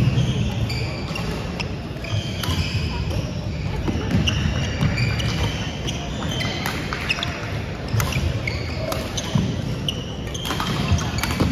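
Badminton rally on an indoor court: sharp racket hits on the shuttlecock and short, high squeaks of court shoes on the wooden gym floor, echoing in the large hall.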